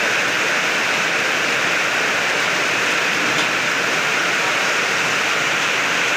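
FFC-45 disk mill running steadily while grinding corn grits into fine corn flour: a loud, even rushing noise.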